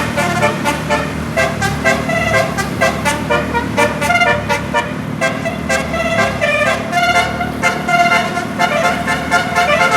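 Bus 'telolet basuri' musical air horn playing a fast tune of short, quickly changing notes, over the low rumble of the bus's engine.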